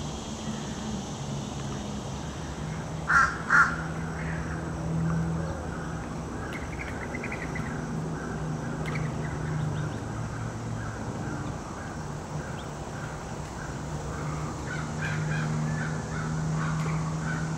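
Fish crow giving two short calls about half a second apart, about three seconds in, over a steady low hum.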